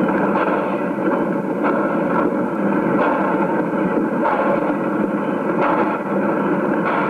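Saddle-tank steam locomotive working a train: a steady rush of steam with a sharper exhaust beat about once a second.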